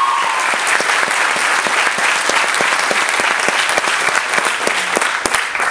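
Audience applauding: dense, steady clapping from many hands, easing off slightly near the end.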